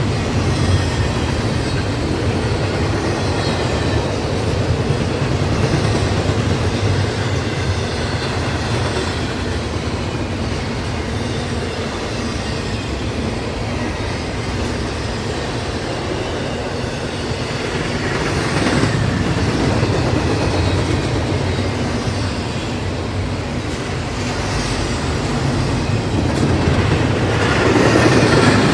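Double-stack intermodal container cars of a freight train rolling past on the rails, a steady rumble and clatter of wheels and cars. It swells louder twice, once past the midpoint and again near the end.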